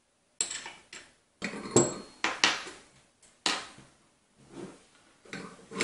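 Metal parts of a monitor-arm desk clamp handled and knocked against a wooden table: an irregular string of sharp knocks and clatters, the loudest about two seconds in.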